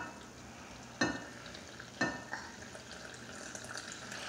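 Warm water poured in a thin stream from a glass measuring cup into a glass bowl of coconut flour, a faint steady hiss. Two light knocks about a second apart, each with a brief hiss after it.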